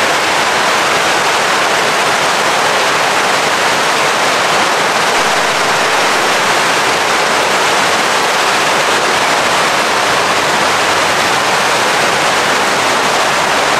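Loud, steady rush and splash of water pouring through the trickle filters and churning the foaming, heavily aerated koi tanks: a racket.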